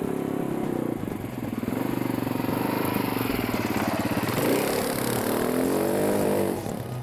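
Kymco MXU 250 ATV's single-cylinder four-stroke engine revving, its pitch rising and falling several times, then dropping away near the end.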